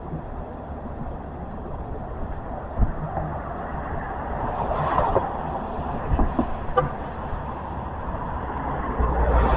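Steady rumble of road traffic, with a few short thumps and a click along the way.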